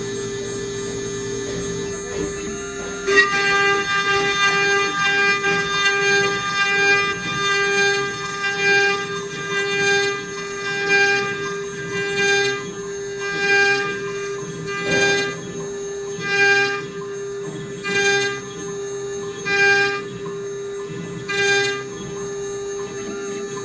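CNC router spindle running with a steady whine while its end mill cuts a wooden cylinder turned in a rotary-axis chuck. From about three seconds in, the cutting comes in repeated louder surges, roughly one every second and a half.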